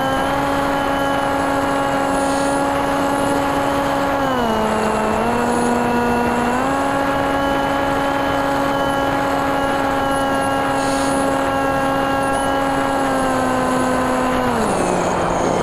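TekSumo flying wing's NTM 28-26 brushless motor and 8x6 propeller, heard close from the onboard camera, running with a steady whine over airflow hiss. The pitch dips about four seconds in as the throttle is eased, climbs back about two seconds later, and drops again near the end.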